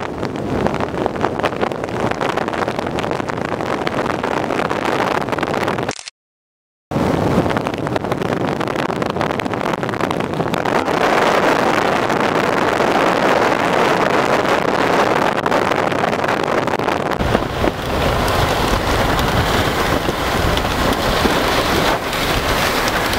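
Wind buffeting the microphone through an open car window, with the rumble of a vehicle driving on a dirt road. The sound cuts out completely for about a second, six seconds in, and grows fuller and lower near the end.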